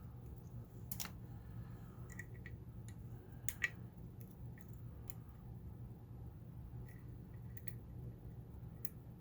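Lock pick clicking and scraping against metal inside a lock's keyway as it probes the pins: about a dozen light, irregular clicks, the sharpest about three and a half seconds in, over a steady low hum.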